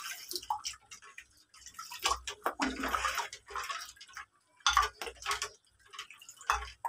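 A steel ladle scooping juice and pouring it back into a steel bowl of ice cubes: splashing and pouring, with sharp clinks of the ladle against the bowl rim and the ice, coming in irregular bursts.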